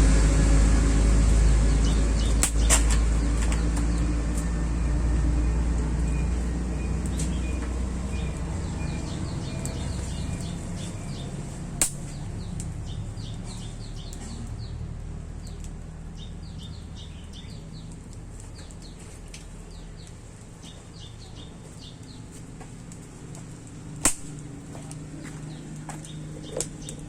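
A vehicle's low engine rumble fading away over the first ten seconds or so, then small birds chirping in repeated short calls. A few sharp clicks stand out, the loudest near the end.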